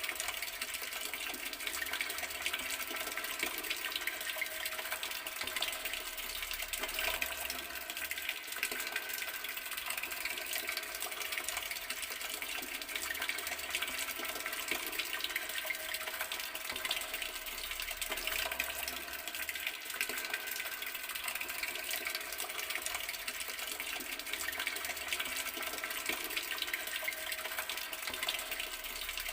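Water running steadily from an open garden tap, an even, unbroken flow.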